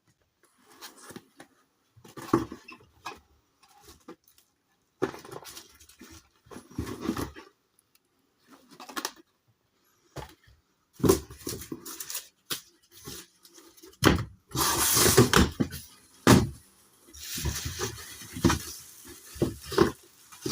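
Packaging being handled while an amplifier is unboxed: irregular rustling and scraping with scattered knocks, and a longer stretch of rustling about two-thirds of the way through.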